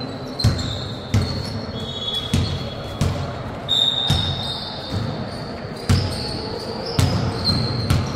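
A basketball bouncing on a gym floor in uneven thuds, about eight in all, with short high squeaks of players' shoes on the court.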